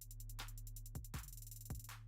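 Background music: an electronic drum-machine beat with kick drum hits roughly twice a second, fast hi-hat ticks and a held low bass note.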